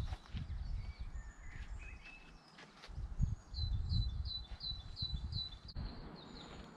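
Small birds singing: scattered chirps, then a run of about seven quick, high repeated notes in the middle. Underneath, low thudding of walking footsteps and handling on the microphone.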